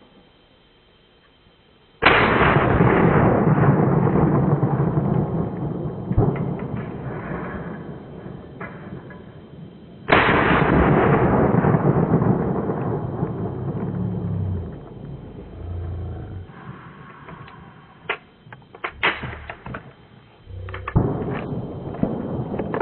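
Two shots from an over-and-under shotgun about eight seconds apart, each a sudden loud report followed by several seconds of rolling echo. A few short sharp clicks follow.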